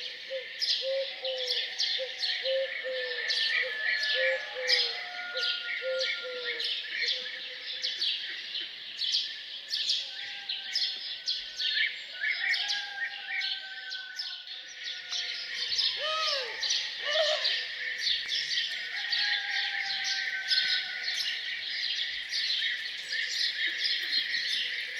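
A chorus of many small birds chirping and singing without pause. For the first several seconds a lower note repeats rapidly underneath, and about two-thirds of the way through a couple of lower, arching calls stand out.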